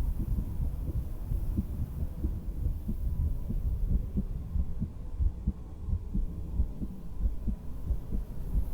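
A person's heartbeat heard through a stethoscope: low thumps repeating in a steady, regular rhythm over a low rumble.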